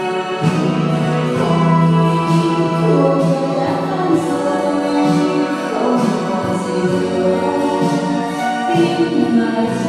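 A song playing: voices singing over instrumental backing.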